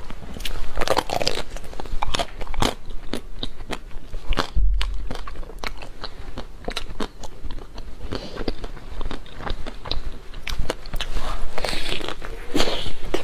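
Crisp chocolate shell of a dessert ball crunching and crackling as it is bitten and broken apart, with close-up chewing, in many irregular sharp crunches. A dull low thump comes about four and a half seconds in.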